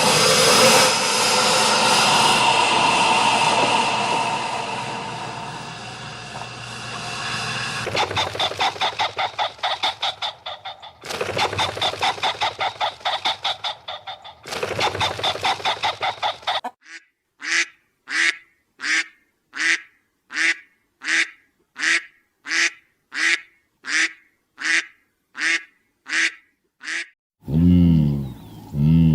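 A flock of waterfowl calling: first a dense overlapping chorus, then bursts of rapid calling, then a single bird giving one call after another at about one and a half calls a second. A deeper animal call comes in near the end.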